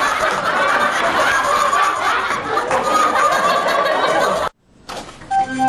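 Sitcom laugh track: many people laughing together, cutting off abruptly about four and a half seconds in. A short musical sting starts just before the end.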